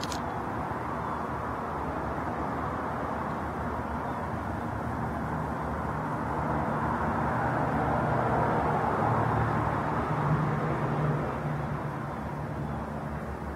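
Outdoor background noise: a steady rush with a low hum underneath, growing louder from about six seconds in and easing off near the end.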